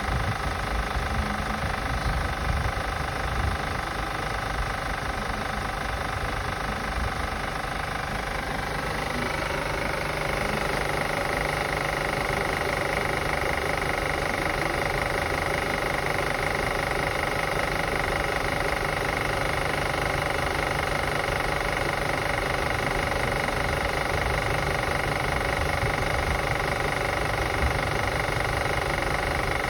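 2005 Acura TL's V6 engine running steadily, with the clicking that the owner is assessing. A steady high whine joins about a third of the way in.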